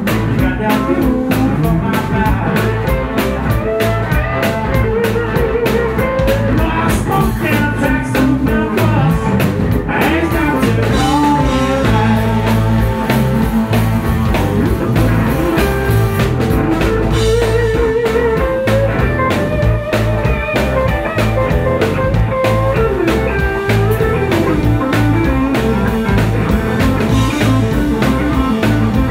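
Live blues band playing: electric guitars, bass guitar and drum kit. A bending guitar melody runs over a steady beat.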